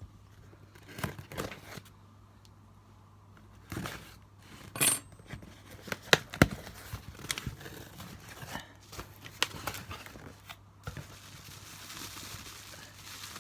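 A cardboard parcel being opened by hand: packaging tearing and crinkling, with scattered small knocks and scrapes, and a steadier rustle near the end.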